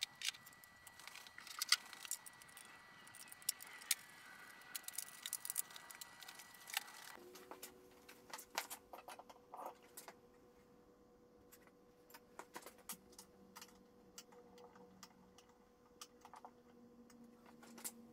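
Faint, scattered small clicks, taps and rattles of hands working on controller wiring and handling a CNC touchscreen controller unit.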